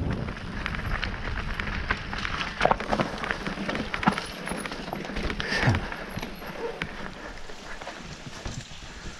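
Mountain bike rolling over a rocky trail: an irregular clatter of tyres and frame knocking on stones, with one harder knock about halfway through, slowly getting quieter.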